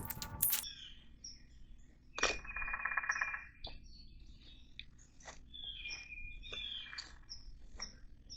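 Wild birds chirping, with scattered short high calls and one longer buzzy call about two seconds in. A short rustle right at the start.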